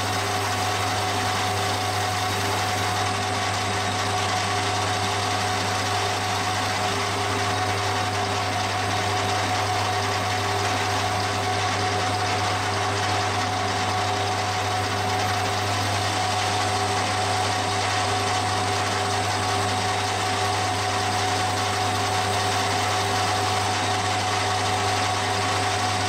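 Metal lathe running steadily with a faceplate fixture spinning: an even motor hum with a few steady tones above it, while red Scotch-Brite is held by hand against the turning venturi to polish it.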